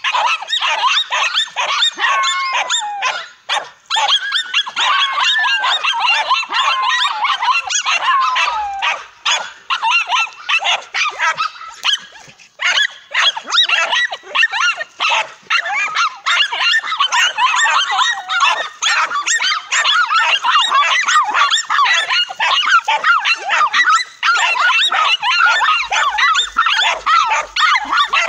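Several dogs barking and yelping at once in a dense, unbroken din, with high whining cries gliding up and down among the barks in the first several seconds.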